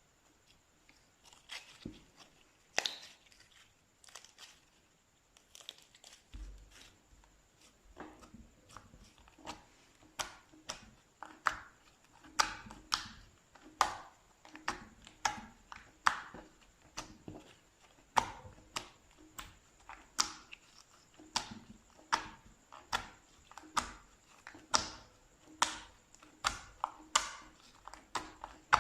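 Slime being squeezed and pressed by hand, giving short crackling pops: a few scattered ones at first, then a steady run of about one or two a second from about eight seconds in.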